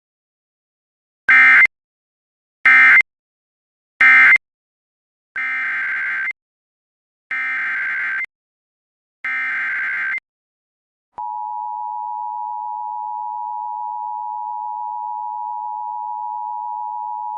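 Emergency Alert System tones. Three short, loud digital data bursts are followed by three longer bursts, the coded header that opens an alert. About 11 seconds in, a steady attention tone of two close pitches begins and holds, signalling the start of a new warning message.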